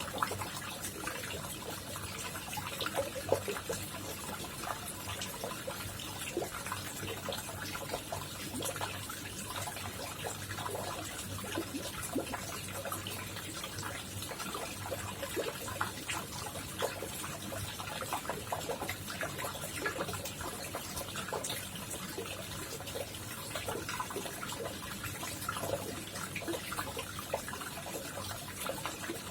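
Water trickling and splashing steadily into a koi pond, a continuous patter of small splashes with a faint low hum underneath.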